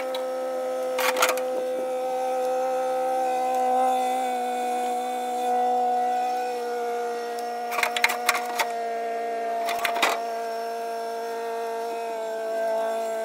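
Yanmar B22 mini excavator running, a steady whine of several even tones that shifts slightly a couple of times, with a few sharp knocks about a second in and again around eight and ten seconds.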